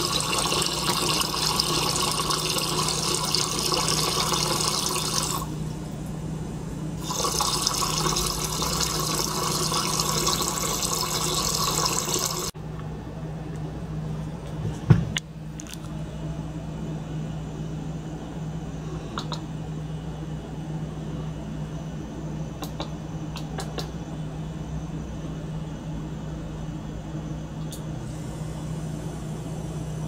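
Water being circulated by a small pump through plastic tubing into a beaker, splashing loudly with a steady low hum underneath. The splashing breaks off for a second or two and returns, then stops abruptly about twelve seconds in, leaving the hum. A single knock comes a few seconds after the splashing stops.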